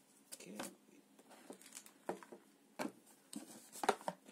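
Light knocks and rustling of a power adapter and its cable being set down into a cardboard box, with the loudest knock near the end.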